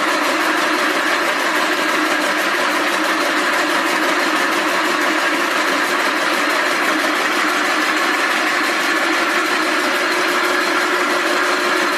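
Rope braiding machine running at a steady pace, winding braided rope onto its take-up spool: an even, continuous mechanical running noise with no change or pause.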